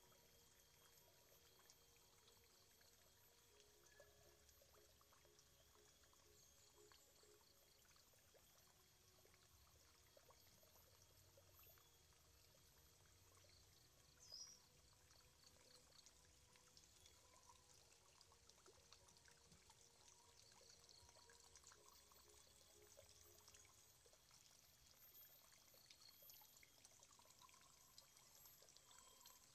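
Near silence: faint outdoor ambience with a faint trickle of water, faint repeating high chirps, and one brief high chirp about 14 seconds in.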